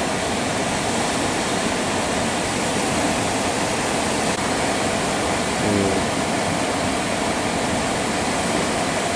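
Kuma River in flood, its swollen brown water rushing past in a steady, unbroken roar.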